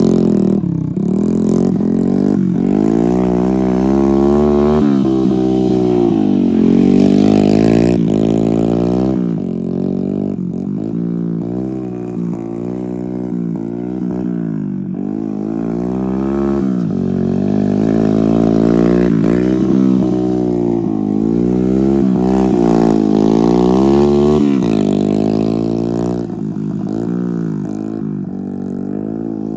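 Small dirt bike's engine revving up and dropping back again and again as it is ridden hard through tight sliding turns on loose dirt.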